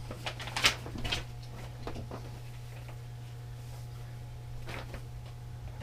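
A steady low hum with a few light clicks and rustles scattered through it, from handling the unpacked parts and instruction sheets.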